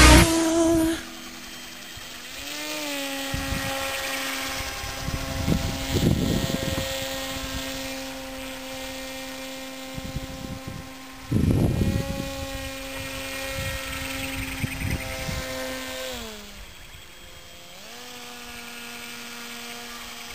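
Motor and propeller of a radio-controlled pusher autogyro in flight: a steady buzzing drone whose pitch rises about two seconds in, drops around sixteen seconds and comes back up soon after as the throttle is changed. Background music cuts off about a second in, and rushing gusts of wind hit the microphone at about six and eleven seconds.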